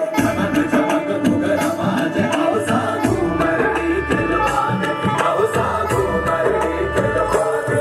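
Music for a Ghoomar dance: a Rajasthani folk song with singing over a drum beat, and a deep bass beat coming in about three seconds in.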